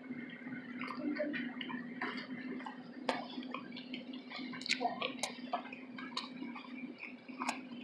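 Close-up chewing of a soft, saucy chilli cheese slaw veggie dog: irregular wet mouth clicks, smacks and squishes, over a steady low hum.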